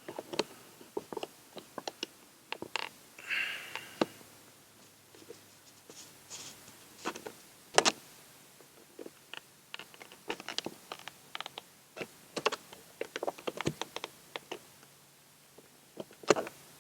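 Irregular plastic clicks and taps as a car door's courtesy light housing is worked loose from the interior door panel, with a short scraping rasp about three seconds in.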